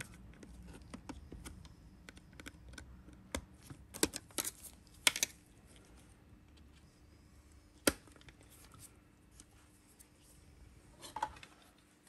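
Light clicks and scratches of fingers and a screwdriver tucking wires and pushing a spade connector onto its terminal on a Dyson DC25's motor housing. The clicks come irregularly, with the sharpest few about four to five seconds in and again near eight seconds.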